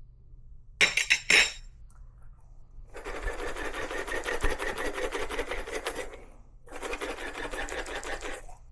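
A few sharp rattles about a second in. Then a 1Zpresso K-Ultra hand coffee grinder is cranked, its burrs crunching through beans in a steady rasp, in two stretches with a short pause between them.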